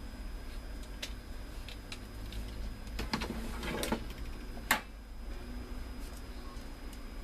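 Printer parts being handled and fitted back together: scattered light clicks, a short run of clatter about three seconds in, and one sharp click near five seconds in, over a steady low hum.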